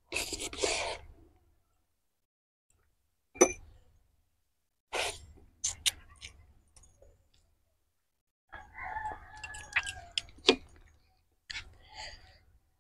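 Rooster crowing once, about two seconds long, starting near the two-thirds mark. Around it are close-up eating sounds: a wet bite and chewing in the first second and sharp mouth clicks and smacks.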